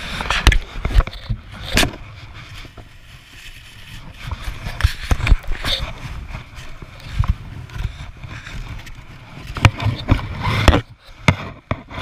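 Small red plastic snow shovel scraping and scooping through snow, with crunching snow. Irregular knocks and bumps sound close to the microphone, several of them loud near the start and again around ten seconds in.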